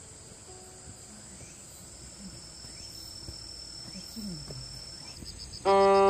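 Insects trilling steadily in a high, continuous ring. About a second before the end, loud instrumental music with long held notes cuts in suddenly.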